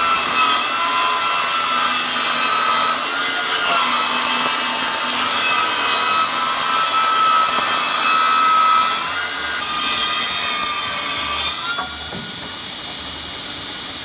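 Table saw ripping a wooden board lengthwise into a 1.5-inch strip against the fence. The blade cuts steadily with a whine that wavers slightly in pitch, and the sound cuts off suddenly at the end.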